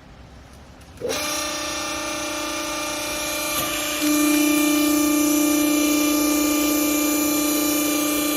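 Hydraulic baling press for used clothes: its pump motor starts suddenly about a second in and runs with a steady whine, growing louder about three seconds later and holding there.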